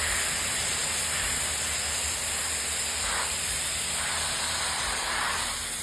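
Pressure washer spraying a steady, hissing jet of water onto sandals.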